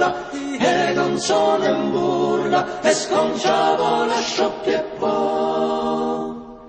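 Choir singing held chords, fading out near the end.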